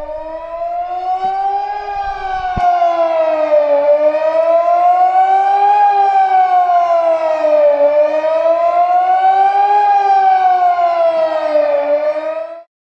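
Civil-defence siren under its annual test, sounding the Swiss general alarm: a loud wailing tone that rises for about two seconds and falls for about two seconds, three times over, then cuts off near the end.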